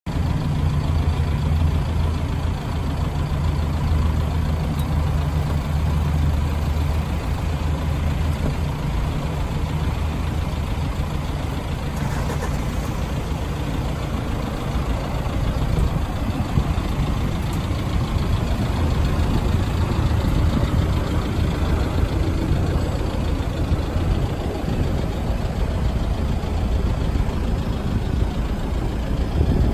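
Toyota Sport Rider's 1KD-FTV 3.0-litre four-cylinder common-rail turbodiesel idling, a steady low hum.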